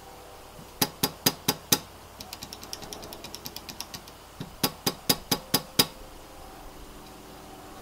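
Gateron Red linear key switches on the XD84's aluminium plate being pressed: five sharp clacks, then a quicker run of softer clicks, then six more sharp clacks. At this early stage of the build they do not sound very convincing.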